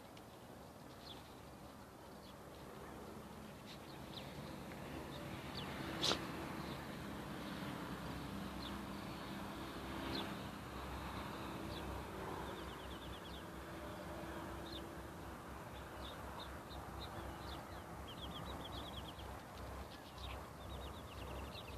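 Birds chirping with many short, high chirps and a few quick trills over a steady background hum, with one sharp click about six seconds in.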